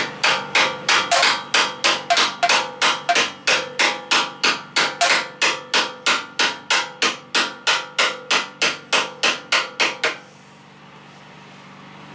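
Ball-peen hammer tapping a belt pulley onto the engine's crankshaft adapter, metal on metal: an even run of taps, about three a second, that stops about ten seconds in.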